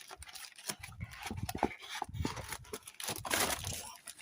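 Foil card packs crinkling and rustling as they are lifted out of a cardboard box, with small taps and clicks of handling and a louder rustle about three seconds in.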